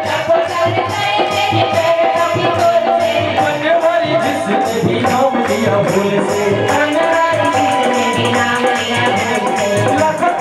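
Devotional bhajan music: singing over a microphone with dholak drumming and hand-clapping keeping a steady fast beat.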